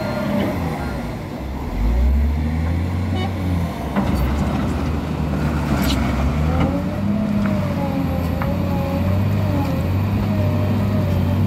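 Caterpillar 966H wheel loader's diesel engine running under work, a steady low drone with a whine that rises and falls, and two sharp knocks about four and six seconds in.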